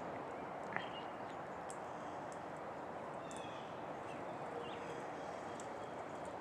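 Small songbirds giving scattered short chirps over a steady outdoor hiss, with one brief click about a second in.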